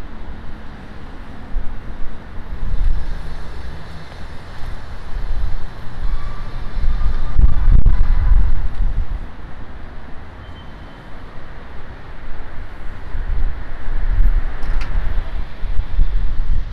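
Street traffic passing, a loud low rumble that swells up three times, with wind buffeting the microphone.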